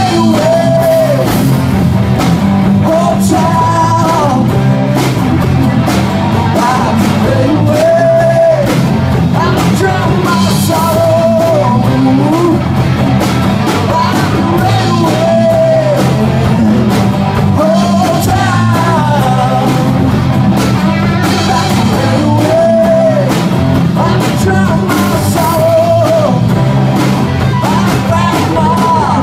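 Live rock band playing loud and without pause: a man singing a lead vocal in repeated phrases over acoustic and electric guitars, bass guitar and a drum kit.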